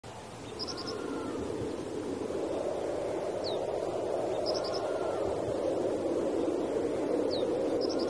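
Rainforest ambience fading in: a steady rushing hiss with birds calling over it, a short cluster of high chirps and a lower two-note call about every four seconds, each followed by a quick falling whistle.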